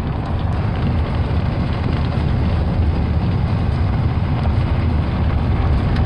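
Steady rumble of a truck driving along a road, heard from inside the cab: engine and tyre noise with wind rushing in at the side window.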